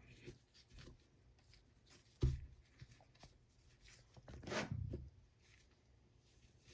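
Quiet handling of an AR-15 bolt carrier and cleaning tools on a bench: one sharp knock about two seconds in, faint small ticks, and a brief brushing scrape a little past the middle.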